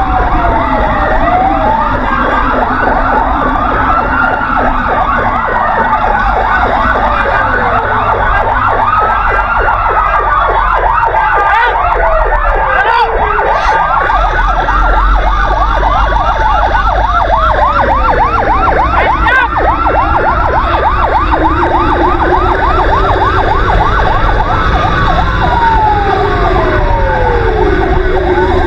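Several emergency sirens of a fire-brigade convoy sounding together. Slow wails fall and rise every few seconds, and a rapid yelping sweep joins them through the middle stretch, over a steady low rumble.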